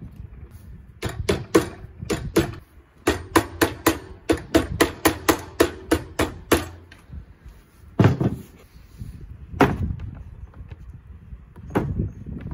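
A hammer tapping a grey door-frame trim onto the cut edge of a wood-laminate cupboard door panel: a quick run of about twenty sharp taps, about four a second. Two heavier, deeper knocks follow a few seconds later.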